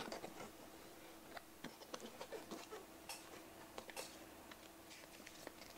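Faint clicks and scrapes of a small cardboard box being opened by hand: the lid flaps lifted and the paper inserts inside handled.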